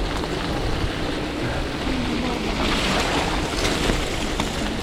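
Gravel bike riding along a wet trail: steady tyre noise and wind buffeting the camera microphone, with a brighter hiss about three seconds in.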